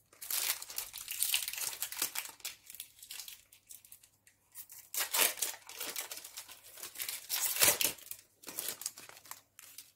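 Foil booster-pack wrapper of Pokémon trading cards being crinkled and torn open by hand, then rustling as the card stack is pulled out. The crackling runs throughout, loudest about halfway through and again near the end.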